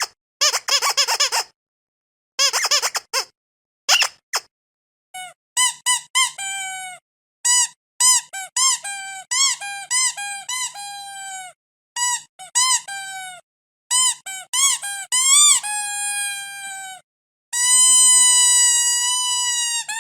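Squeaky dog toy squeezed over and over: quick clusters of short squeaks at first, then separate squeaks that rise and fall in pitch, two or three a second, ending in a long drawn-out squeal held over the last couple of seconds.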